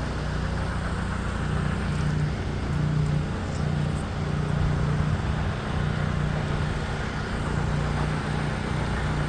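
Engine-driven milling machinery running steadily: a low, even drone with a note that swells and fades every second or so.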